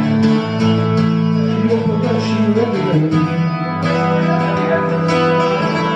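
Instrumental break in a traditional folk song: chords on a plucked string instrument, likely acoustic guitar, ringing in a steady strummed rhythm.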